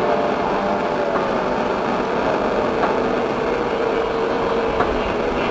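Racing outboard motor on a mono-hull race boat running at full throttle across the water: a steady high engine whine that falls slightly in pitch past the middle, over a steady rush of noise.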